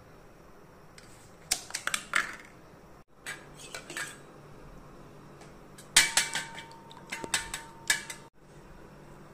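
A steel spoon clinking and scraping against stainless-steel kitchen vessels in three short bursts of rapid taps, the last with a brief metallic ring. It is the sound of stirring milk in a steel tumbler and beating eggs in a steel bowl.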